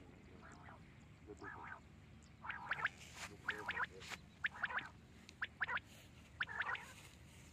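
Quail calling repeatedly, a short harsh call roughly once a second, with a few sharp clicks in between.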